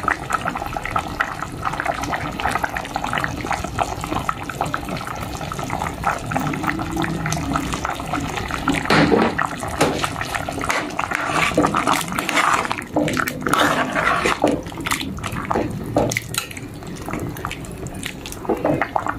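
Pot of pork stew liquid simmering on a gas burner, a steady, dense bubbling and crackling.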